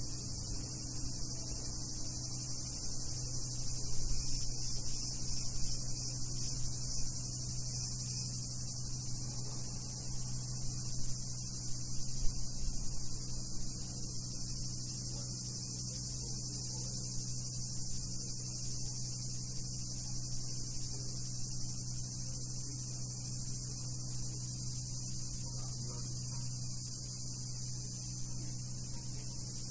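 A chorus of cicadas singing in a steady, high-pitched buzz, with a low steady hum underneath.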